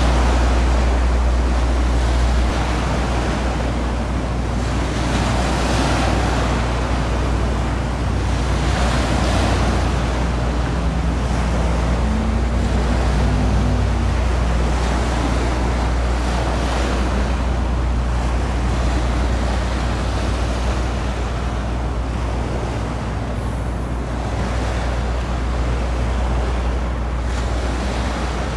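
Steady low drone of a passing general cargo ship's diesel engine, under a rushing noise of wind and water that swells and fades every few seconds.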